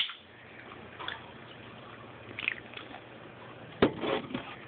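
Faint fizzing and small liquid sounds from a just-opened soda, with a few light clicks and one sharp knock nearly four seconds in.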